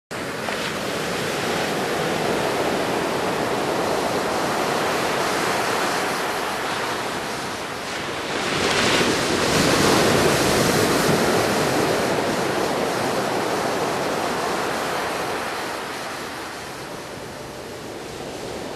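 Atlantic Ocean surf breaking and washing on a beach, a steady rushing noise that swells as a larger wave crashes about halfway through and then eases off. Some wind noise on the microphone.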